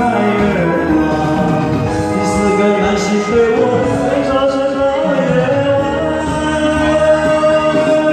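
Singing with musical accompaniment in a slow song. The voice holds one long note through the second half.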